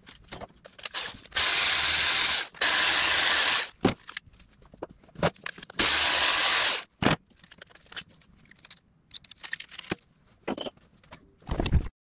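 Socket wrench ratcheting in three bursts of about a second each, with scattered sharp clicks and knocks of tools, as the cam phaser and idler gear bolts of a 3.6L GM V6 are run down.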